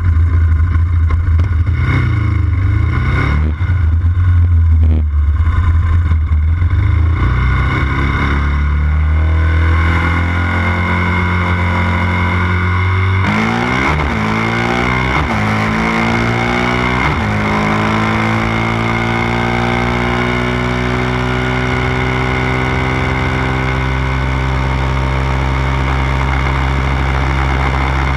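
Yamaha Raptor 700 sport quads' single-cylinder engines with aftermarket intake and exhaust, running loud and revved in short bursts. About halfway through they accelerate hard through three quick upshifts, and the pitch climbs and then settles into a steady cruise.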